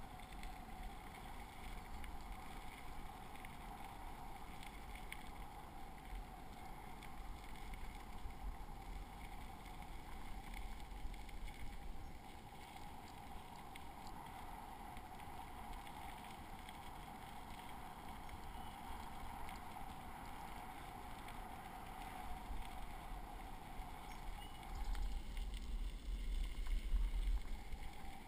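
Bicycle tyres rolling steadily over a gravel trail, with wind rumbling on the microphone. The wind gusts louder near the end.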